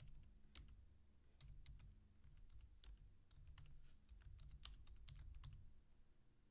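Computer keyboard being typed on: a faint run of irregular key clicks that stops about five and a half seconds in.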